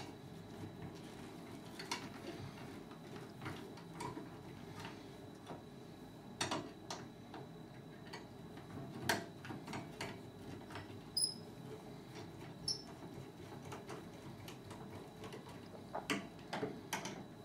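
Hand screwdriver turning screws into a patio door's plastic handle: scattered small clicks and scrapes of the bit and screws, with two short high squeaks near the middle, over a low room hum.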